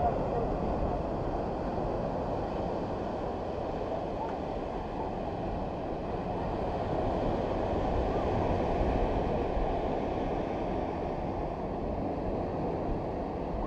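Ocean surf washing in and out over the beach as a steady rush, with wind rumbling on the microphone.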